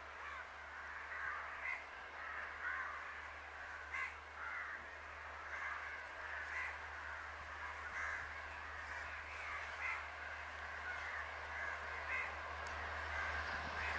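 Crows cawing repeatedly in short calls, over a faint low steady hum. Toward the end a rising rush of the approaching train begins to build under the calls.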